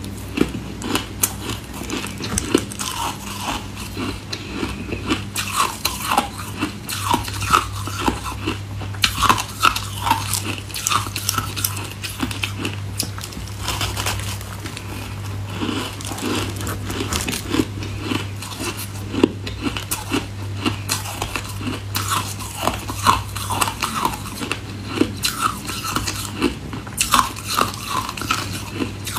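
A person biting and chewing chunks of packed, snowy ice close to the microphone: irregular, repeated crunches.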